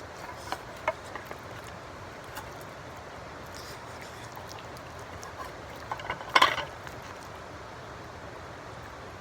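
Metal utensil clinking and scraping against camp cookware, with a few light clicks in the first second and one louder clatter about six and a half seconds in, over a steady outdoor background hiss.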